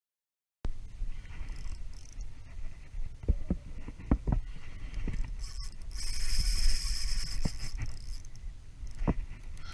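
Shimano Ci4+ 3000 spinning reel being cranked against a hooked fish, over a low wind rumble on the microphone and water lapping at the kayak. A few sharp knocks come around three to four seconds in, and a louder stretch of high hiss runs from about six to eight seconds in.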